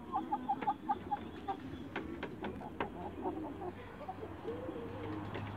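A flock of young Light Brahma chickens calling softly as they forage, with a quick run of about six short, higher calls in the first second, then scattered low clucks.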